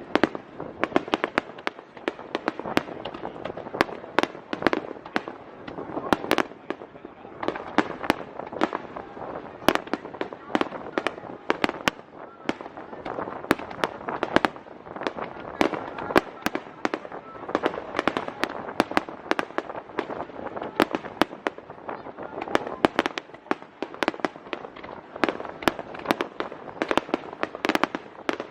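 Aerial fireworks bursting in quick succession: many sharp bangs and cracks, several a second, over a steady hiss of crackling.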